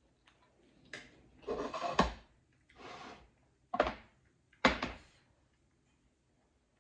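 Close-up eating of a plate of instant noodles: two longer slurping stretches and several sharp knocks of tableware, a fork on a ceramic plate and a glass set on the table.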